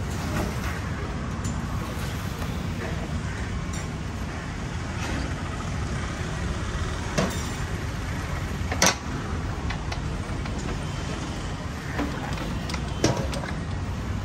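Steady road-traffic rumble, with a few short metallic clanks and knocks as large metal cooking pots are set onto a metal stand, the loudest about nine seconds in.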